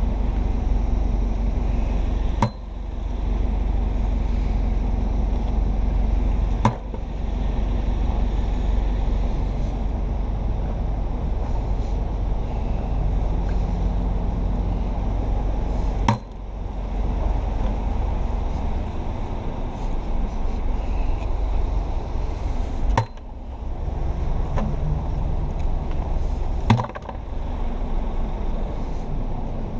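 Steady low rumble of city street noise and wind on a body-carried camera, with five sharp handling knocks spread through.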